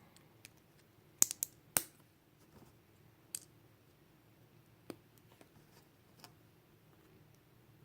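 Plastic Lego bricks clicking and clacking as pieces are picked out and pressed together: a quick run of sharp clicks about a second in, then single clicks every second or two.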